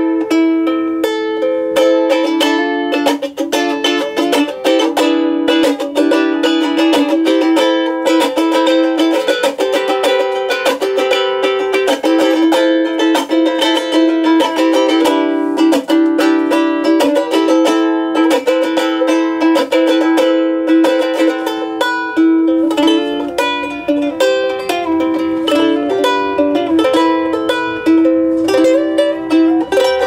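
Solo G-Labo thin-body soprano ukulele with an all-walnut body (top, back and sides), played fingerstyle: a quick-moving melody picked over chords, ringing continuously.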